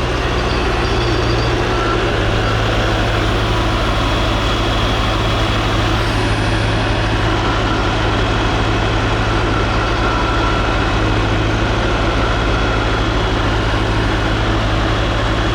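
A large engine running steadily at low speed, with a steady hiss over it.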